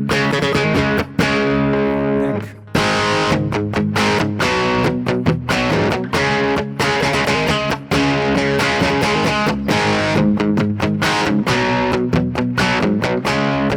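ESP LTD EC-401 electric guitar with EMG 60/81 active humbuckers, played through a lightly overdriven crunch tone: chords and riffs with a few short stops between phrases.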